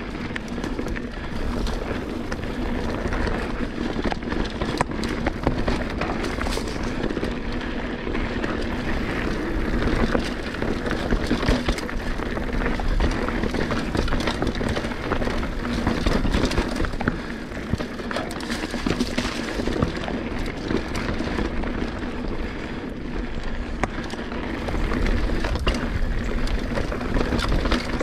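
Mountain bike riding along a dirt singletrack trail: tyres rolling over dirt and roots while the bike rattles and knocks over bumps, with many short sharp clicks throughout.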